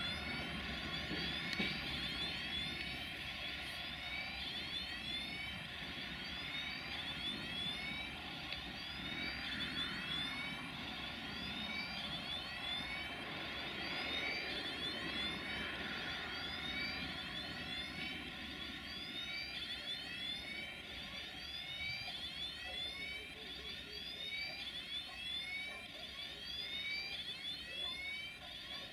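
Freight train of hopper wagons rolling slowly away on the track, with a low rumble and a high wheel squeal that rises and falls over and over, about twice a second.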